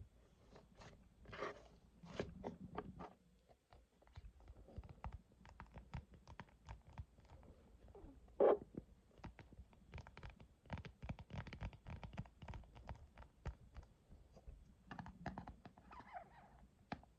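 Close-up ASMR crackling and squishing of cloud slime worked by hand: a dense, irregular run of small crisp crackles and soft taps, with one louder pop about halfway through.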